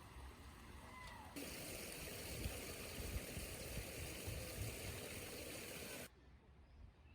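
Steady rushing hiss like running water, starting abruptly about a second and a half in and cutting off sharply about six seconds in.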